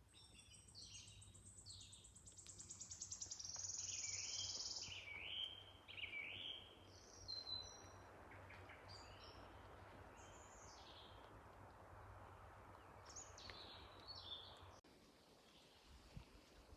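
Faint songbirds singing in woodland: a fast high trill that peaks about four seconds in, then scattered short chirps and whistled notes.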